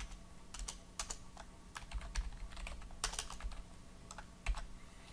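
Typing on a computer keyboard: irregular keystroke clicks, some in quick runs, stopping shortly before the end.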